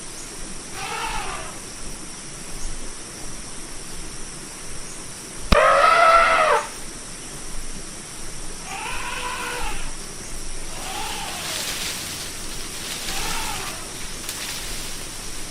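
Elephant trumpeting: a series of five short, high, pitched calls that rise and fall in pitch, the loudest about six seconds in.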